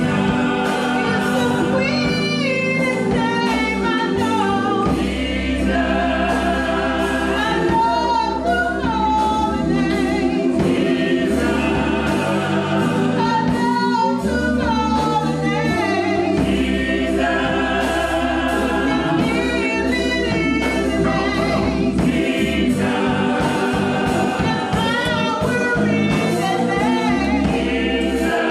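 Church choir singing gospel music, with sustained low tones under the voices.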